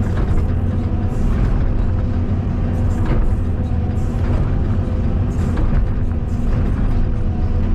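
Caterpillar 320D2 hydraulic excavator working, its diesel engine running with a steady, even drone.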